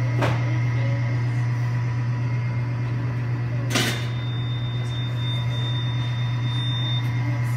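Steady low machine hum, broken by two sharp clicks or knocks: a light one at the start and a louder one about four seconds in.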